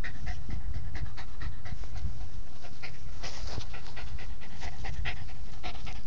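Small shaggy dog panting rapidly, about three to four short breaths a second, right at the microphone, with a low rumble underneath.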